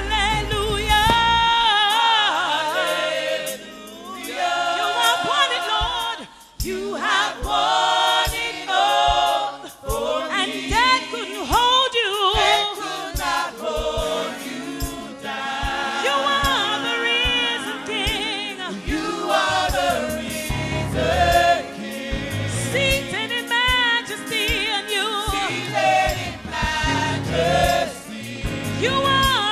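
Gospel music with several voices singing together, with a steady beat through the middle of the passage.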